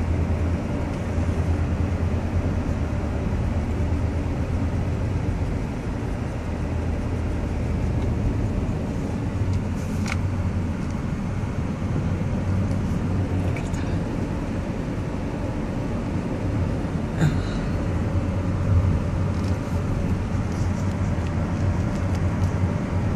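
Steady low road and engine rumble of a car driving along a winding road, heard from inside the cabin.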